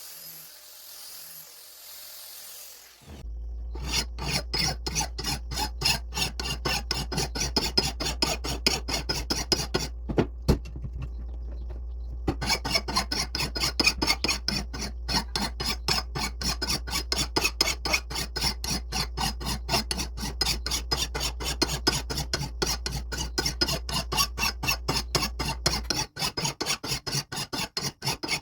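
Hand rasp worked in quick back-and-forth strokes on wood, about three strokes a second, starting a few seconds in with a pause of about two seconds midway. A low steady hum runs underneath and stops near the end.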